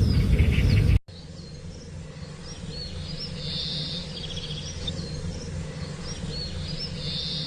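A loud low rumble cuts off about a second in. Then songbirds chirp with short high whistled notes, and a buzzy trilled phrase comes twice, about three and a half seconds apart, over a steady low hum.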